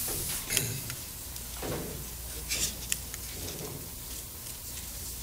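Room tone through a lecture microphone: a steady low hum with a few faint clicks and brief soft noises between spoken phrases.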